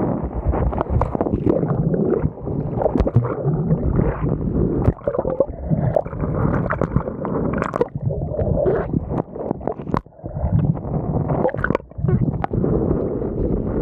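Choppy seawater splashing and gurgling over an action camera's microphone as the camera is washed about and dipped under the surface, mixed with wind buffeting on the mic. The sound drops out briefly a few times.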